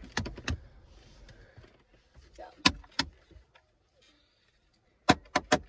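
Sharp clicks and taps of small objects being handled and put away inside a car: a few near the start, two more in the middle, then a quick run of clicks near the end.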